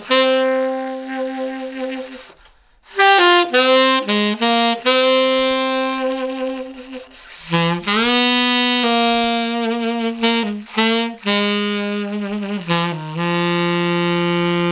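Solo saxophone playing a slow melody of held notes, breaking off briefly about two and a half seconds in and ending on a long sustained note.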